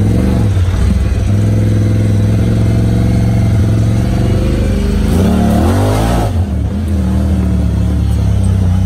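2019 Honda Talon 1000R side-by-side's parallel-twin engine running through an Evolution Powersports slip-on exhaust on a trail ride. The revs rise and fall a little just after the start, and a bigger burst of throttle comes about five seconds in before it drops back to a steady run.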